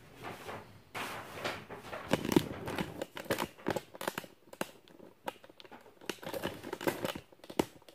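Handling noise as a camera on a tripod is picked up and repositioned: irregular rustling and clicks, with a sharper knock about two seconds in.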